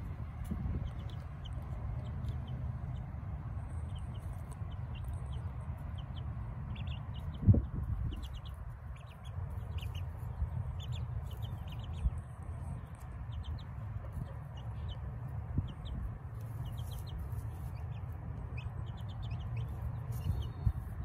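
Young chickens peeping and chirping as they forage, short high calls scattered throughout, over a steady low rumble. A single thump comes about a third of the way in.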